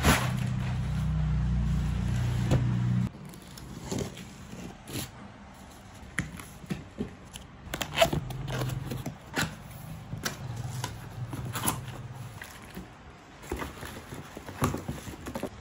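Cardboard box flaps and plastic wrapping being handled while a vacuum cleaner is unpacked: scattered scrapes, taps and crinkles. For the first three seconds a louder low hum runs underneath and then cuts off suddenly.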